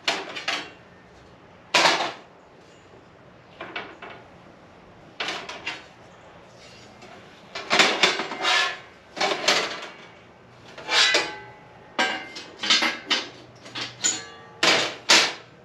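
Carbon-steel panels of a Devos High O2 flat-pack fire pit clanking and scraping as they are handled and slotted together. A few sharp metal knocks come far apart at first, then they come quickly for the second half.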